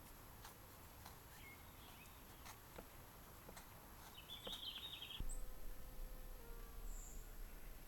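A bird chirps in a short burst about four seconds in, over quiet outdoor ambience with scattered faint light clicks. A low rumble comes in after about five seconds, with a few fainter high chirps.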